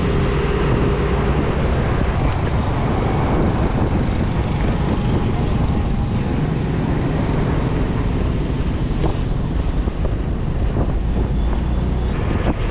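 Wind buffeting the microphone of a rider on a moving Yamaha 125 cc scooter, a steady rushing noise, with the scooter's engine and the surrounding motorbike and car traffic running underneath.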